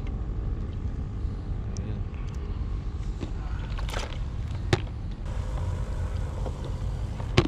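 A steady low rumble with a few sharp clicks as the clear plastic lid of an aerated live-bait bucket is lifted and handled. The loudest click comes near the end.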